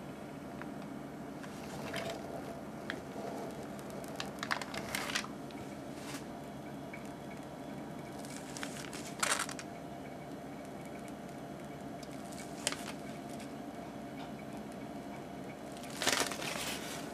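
A piping bag of whipped cream being squeezed out in rosettes, giving a few short, soft squishing and crinkling sounds. A steady low room hum runs underneath.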